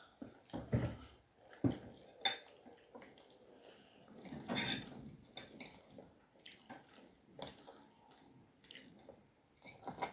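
Metal forks clinking and scraping against a bowl of food, in a series of irregular sharp clinks.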